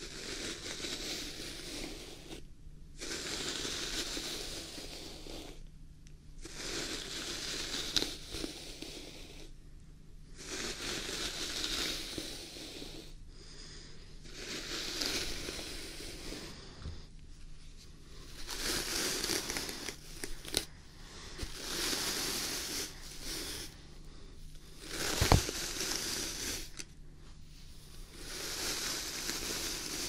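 Bristle brush stroked slowly through a long, thick beard close to a binaural microphone: scratchy, rustling strokes of about two to three seconds each, with short pauses between them. One sharp click about 25 seconds in.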